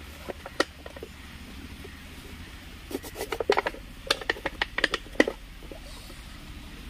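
Thin plastic bottle crackling and clicking as a knife cuts and presses into it: a single click early, then a quick run of sharp crackles between about three and five seconds in.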